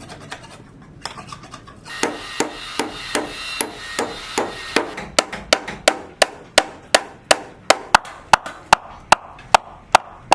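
Steady hand hammering on a building site, about two to three blows a second. It starts in earnest about two seconds in, the first blows ringing.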